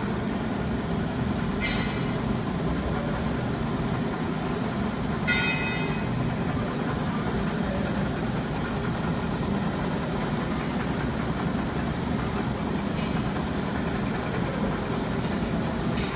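Pineapple cone winding machines running, a steady mechanical hum from the electric motors of the winding heads. A few brief high-pitched chirps break in, the loudest about five seconds in.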